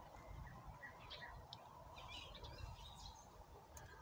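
Near silence: a faint low background rumble with a few faint, short bird chirps.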